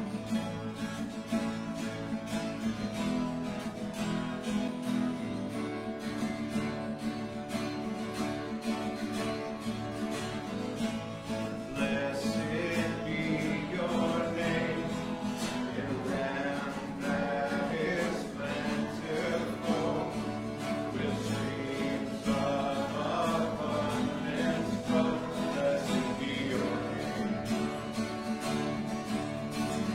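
A worship song: acoustic guitar playing steadily, with voices singing that come in about twelve seconds in.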